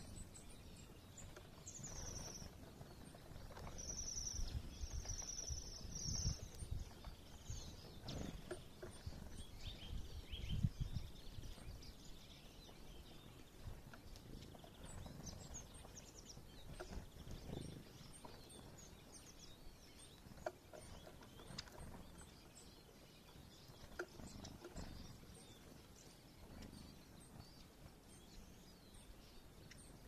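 Small songbirds calling around a bird feeder: thin, high call notes scattered throughout, with a quick run of repeated high notes in the first few seconds. A low rumble sits underneath, strongest in the first ten seconds.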